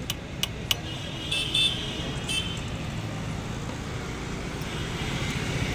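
Steady low rumble of street traffic, with a few sharp clicks in the first second and short, high, ringing clinks a little later.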